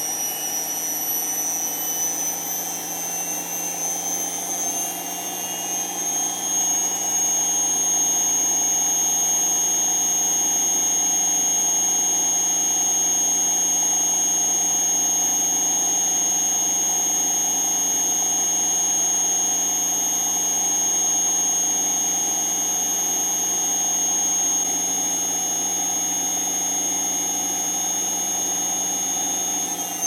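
Bosch Maxx 6 washing machine spinning at 1000 rpm: a steady high motor whine over a rushing hum. The whine climbs slightly over the first several seconds as the drum reaches top speed, then holds level.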